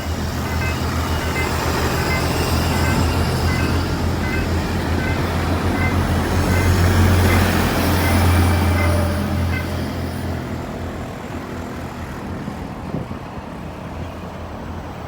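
A train passing by: a low rumble that builds to its loudest about seven or eight seconds in, then fades away over the last few seconds.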